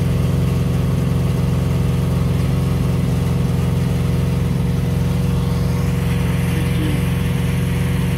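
Car engines running steadily, a constant low engine hum with no revving.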